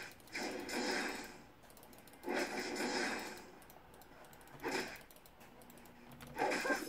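Computer keyboard keys pressed rapidly in four short bursts of clatter, with pauses between them, as the left-hand keys are worked during a game.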